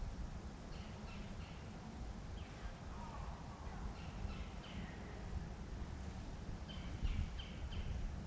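Birds chirping in scattered groups of three or four quick, high, downward-sliding notes, over a steady low rumble.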